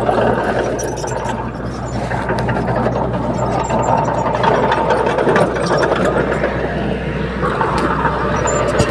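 Diesel engine of a Komatsu D31P crawler bulldozer running steadily under work, with a metallic rattle and clatter over it.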